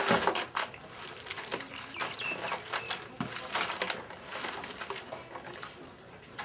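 Live mud crabs being shaken out of a woven basket into a plastic crate: a run of irregular clicks, scrapes and rustles as shells knock against each other, the basket and the crate, loudest at the start.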